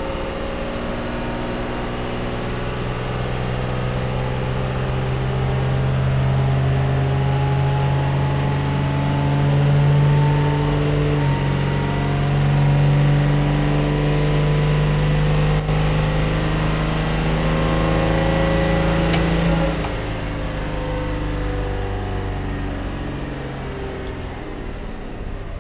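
Turbocharged 12-valve Cummins diesel pulling under full load on a chassis dyno in third gear, with a turbo whine that climbs steadily and gets louder for about twenty seconds. Then the run ends: the engine backs off and the whine falls away.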